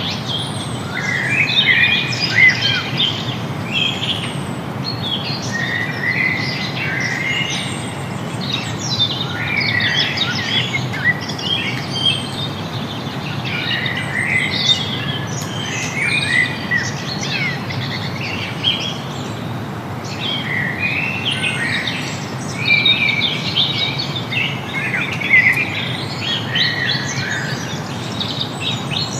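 Several birds chirping and singing at once, with a steady low rushing noise beneath, like the flow of the river. A short high falling note recurs about every two seconds.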